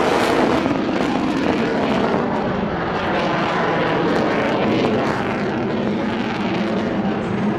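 Aircraft engine noise from a plane in flight, a steady loud rush with a low hum.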